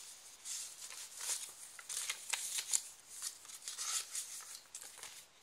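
Paper rustling and sliding in a string of uneven rustles as the pages and paper inserts of a handmade journal are handled and pulled out.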